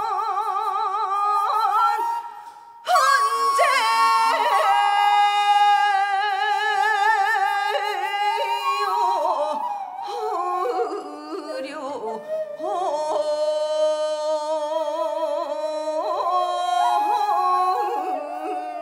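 Female voice singing a Gyeonggi folk song (Gyeonggi sori): long held notes with a wide, shaking vibrato, broken once by a short breath about three seconds in.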